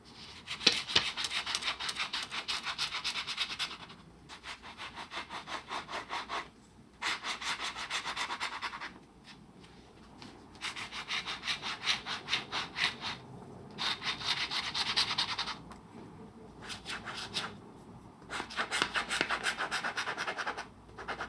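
A dip pen's metal nib scratching rapidly back and forth on paper, hatching ink swatches. It comes in about seven bursts of quick strokes, with short pauses between them.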